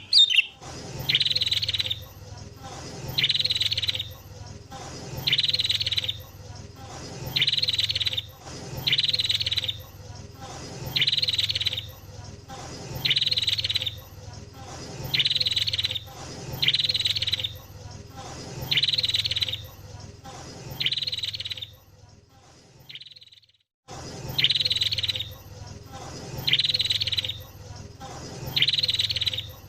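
Sooty-headed bulbul (kutilang) calling: the same short, bright phrase repeated about every two seconds over a low steady hum. The calls break off for about two seconds a little past the middle, then start again.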